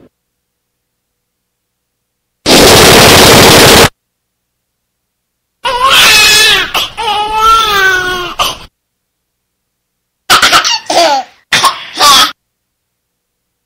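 Three separate short sound effects with dead silence between them. First comes about a second and a half of loud, even noise. Then a wavering human vocal sound lasts about three seconds, followed near the end by a few short vocal bursts, like laughs or coughs.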